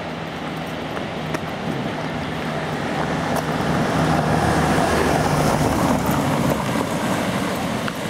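A motor vehicle's engine humming steadily over road noise. It grows louder for a few seconds midway, then the hum drops away near the end.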